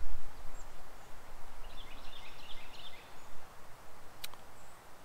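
Outdoor background noise with a low wind rumble on the microphone and faint, distant bird chirps in the middle. One sharp click comes near the end.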